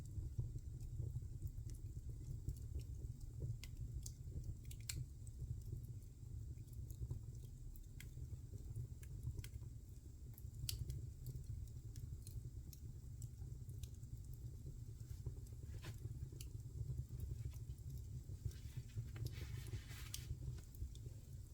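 Wood fire crackling in a fireplace: scattered sharp pops over a steady low rumble of the flames, with a brief hiss near the end.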